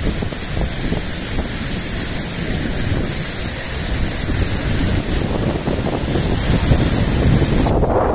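Freshwater torrent from an overfull lagoon bursting through a sand bar to the sea: a steady rush of fast water, with wind rumbling on the microphone. Near the end the high hiss cuts off suddenly and a lower rush carries on.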